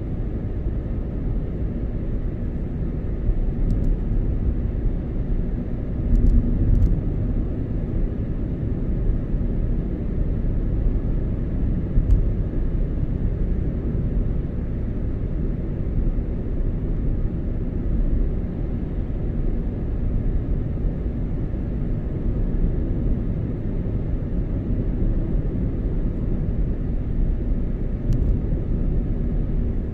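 Car driving at a steady pace: a continuous low rumble of road and engine noise, with a few faint bumps, the clearest about six and twelve seconds in.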